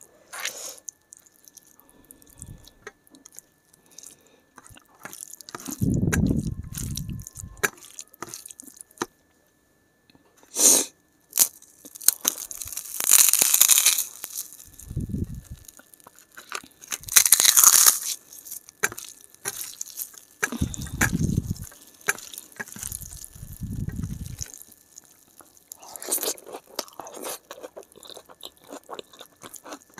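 Close-miked eating sounds: chewing and crunching mouthfuls, with wet squelching of rice being mixed by hand with curry on a steel plate. The sounds come in irregular bursts, louder a few times around the middle.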